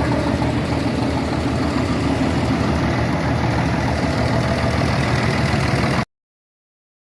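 1953 Scania-Vabis truck engine idling steadily with an even low pulse, cut off suddenly near the end.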